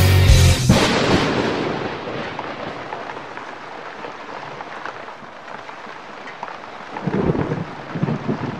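Thunderstorm sound effect. Thunder rolls in about half a second in and dies away into a steady hiss of rain, and a second low rumble of thunder comes near the end.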